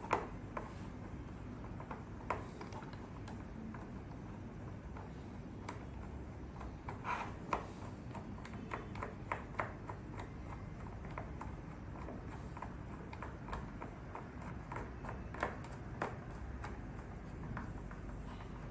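Small screws being driven into a metal lockpick decoder with a small screwdriver: irregular light metallic clicks and ticks of the tool and parts, coming thicker about halfway through, over a low steady hum.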